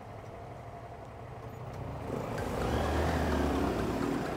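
Honda Bros 160's single-cylinder engine running quietly, then picking up about two seconds in as the motorcycle pulls away, growing louder into a deep steady drone.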